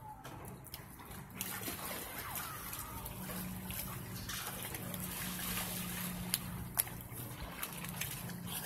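Swimming-pool water sloshing and lapping as people move about in it, over a steady low hum. Two brief sharp sounds come about six and a half seconds in.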